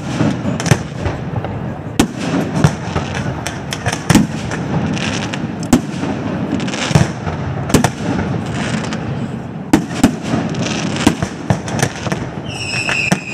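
Aerial fireworks display: shells launching and bursting, about one or two sharp bangs a second over a continuous noisy rumble. Near the end a high whistle starts and slides slightly down in pitch.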